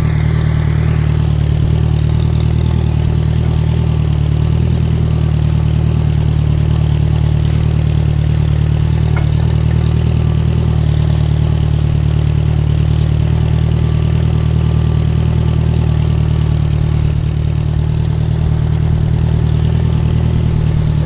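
Small farm tractor's engine running at a steady, unchanging speed while the tractor is driven.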